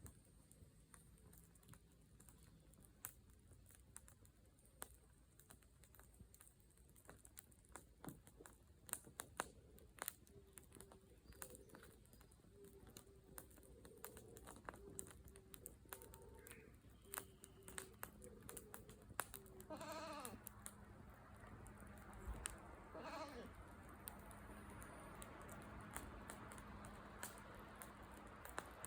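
Wood fire crackling faintly with scattered sharp pops. About two-thirds of the way in, an animal gives two short calls, each falling in pitch.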